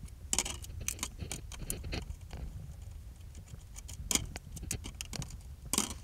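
Irregular clicks and light knocks from a screwdriver and hands working on the plastic dashboard trim of a VW T5 van, with a sharper knock about four seconds in and the loudest one near the end.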